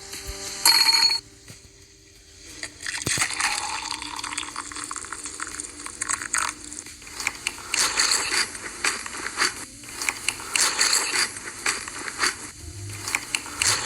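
Close-miked eating: crunchy food being bitten and chewed in a dense run of crackling crunches that begins about three seconds in, after a brief sharp sound about a second in.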